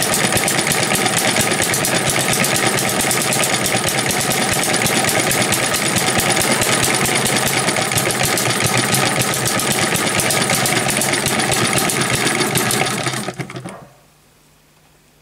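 Model M90 hit-and-miss gas engine running fast with a rapid mechanical clatter, belt-driving a small 12-volt DC motor used as a generator. Near the end the clatter dies away over about a second and stops.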